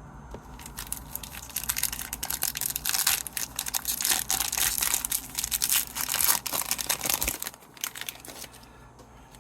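Plastic hockey card pack wrapper being torn open and crinkled for several seconds, the crackling stopping about a second before the end.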